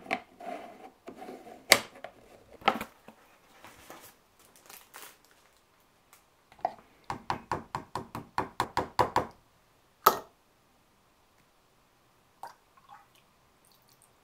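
Glass teapot and its plastic lid and infuser basket being handled: a series of clinks and knocks, with a quick run of about a dozen light taps a little past the middle and one sharp clink soon after.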